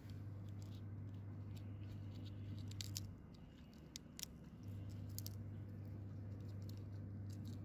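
Small crackles and clicks as a red roselle hibiscus calyx is peeled apart by hand, most of them about three to four seconds in. Under them is a low steady hum that stops about three seconds in and comes back about a second and a half later.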